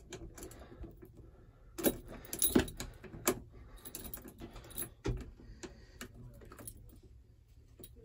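A bunch of keys jangling and clicking as a key is worked into the side-slot ignition switch of a New Holland 675E backhoe. There are several sharp clicks at uneven intervals.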